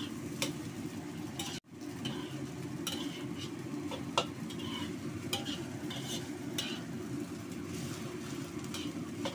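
A metal wok spatula scrapes and clacks against a wok as fried rice is tossed and stirred, with irregular sharp clicks over a steady low hum. The sound breaks off briefly about one and a half seconds in.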